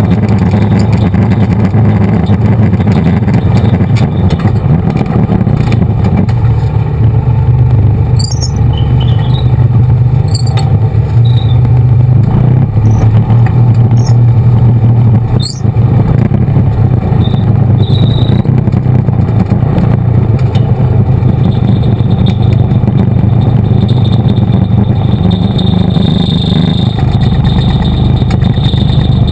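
ATV engine running steadily and loud, heard close up from the machine itself as it climbs and rides a dirt trail. A few short, high squeaks come through in the middle.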